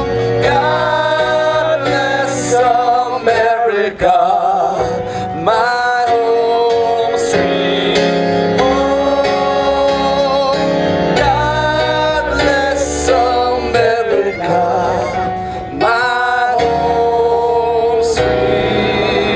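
Live band music: a melodic lead in long, wavering held phrases over bass and drums.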